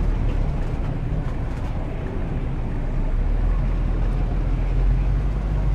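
Steady low rumble of a vehicle driving in city traffic: engine and road noise.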